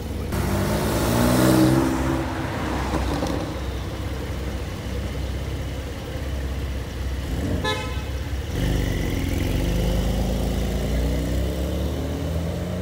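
Porsche 911 twin-turbo flat-six engines accelerating away, the engine note rising in pitch, once at the start and again near the end. A short car-horn toot sounds about eight seconds in.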